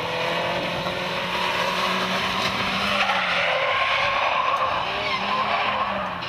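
Small hatchback's engine revving hard, its pitch rising and dipping with the throttle. The tyres skid and scrub loudly on asphalt as the car slides sideways, most strongly from about halfway through to near the end.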